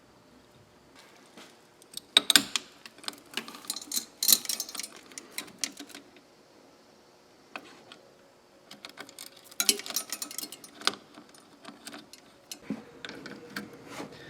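Metal parts and hardware being handled, with sharp clicks and rattling clatter coming in two spells, as a homemade pressure-bleeder adapter plate and its straps are fitted onto the brake master cylinder.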